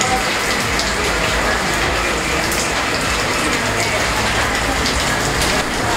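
Steady rain, an even dense hiss, with a few faint ticks of drops.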